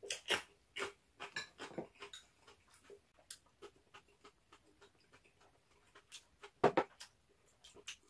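A person biting into and chewing a raw green chili pepper: a run of short wet crunches, busiest in the first two seconds, then fainter chewing clicks, with two louder crunches about seven seconds in.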